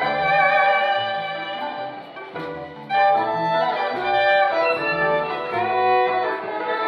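Violin playing a melody of held, sliding notes over a lower accompaniment that steps between bass notes. The music softens about two seconds in and comes back strongly about a second later.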